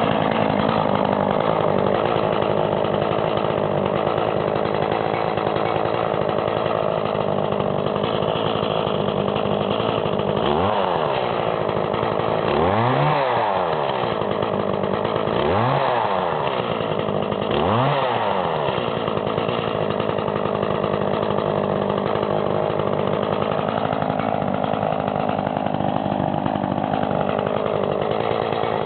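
Echo CS-420ES two-stroke chainsaw running at idle, revved up and let back down four times in quick blips partway through, then given a slower, gentler rise and fall near the end.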